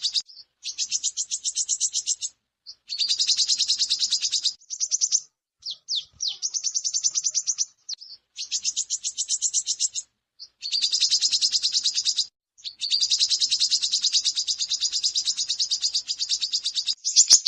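Female brown-throated sunbird (korlap) calling in rapid, high-pitched chattering trills. The trills come in runs of one to two seconds with short breaks, and one longer run comes near the end.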